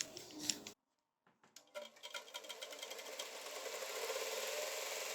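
A couple of sharp knocks, then after a brief gap a small electric power tool starts up, building over about two seconds into a steady run with a fast, even chatter.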